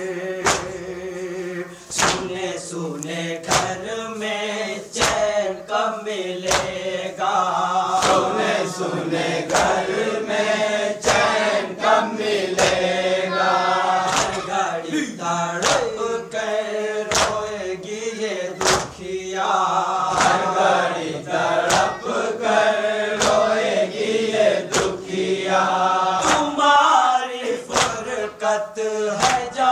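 A group of male voices chanting a Muharram noha (lament) together. Sharp slaps of matam chest-beating keep a steady beat, about one and a half a second.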